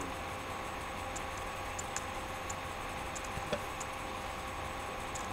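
Quiet room tone: a steady low hum with faint, irregularly spaced small ticks, and one slightly louder click about three and a half seconds in.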